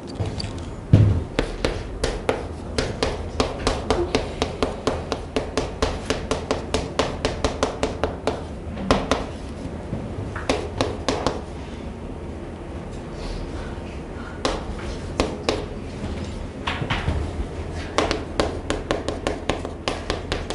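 Chalk tapping and scratching on a blackboard as words are written: quick runs of sharp taps, several a second, broken by a couple of short pauses, with a harder knock about a second in.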